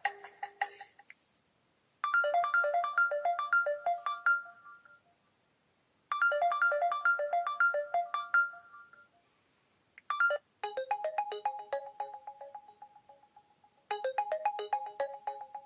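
Preloaded LG K10 phone ringtones: a short electronic melody of quick plucked notes plays twice, then a different chiming melody with a held note under it starts about ten seconds in and repeats.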